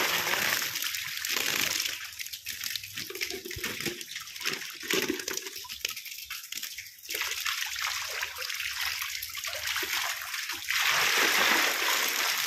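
Water splashing and sloshing as crowded fish thrash in shallow pond water and a plastic basket is scooped through them. The splashing is loudest at the start and again over the last couple of seconds, patchier in between.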